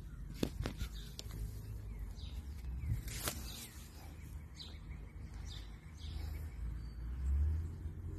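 Outdoor yard ambience: small birds chirping now and then over a low rumble, with a few sharp clicks in the first few seconds.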